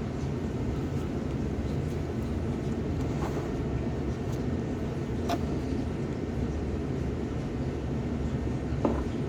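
A steady low rumbling noise, with a sharp click about five seconds in and fainter clicks a couple of seconds before and near the end.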